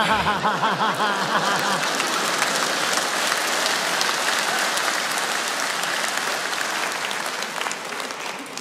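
Studio audience laughing and applauding. Laughter rides over the clapping for the first couple of seconds, then steady applause that tapers off near the end.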